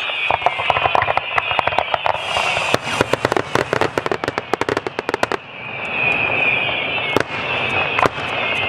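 Fireworks going off: shell bursts and bangs, with a dense run of rapid crackling pops from about two and a half to five and a half seconds in, then two single bangs near the end. A steady high-pitched hiss runs underneath throughout.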